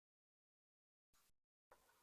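Near silence, with two very faint short noises, one about a second in and one near the end.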